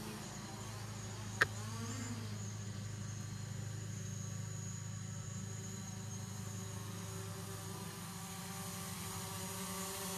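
Quadcopter drone propellers giving a steady buzzing hum with a high whine, growing a little louder near the end as the drone comes down toward the pilot. A single sharp click sounds about a second and a half in.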